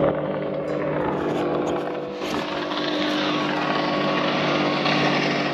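Boat motor running at a steady pitch, with a rush of wind and water that grows about two seconds in.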